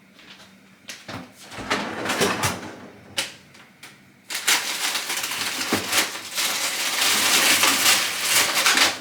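Kitchen utensils clicking and knocking, then about four seconds in a loud, steady crackling sizzle of food frying in a hot pan.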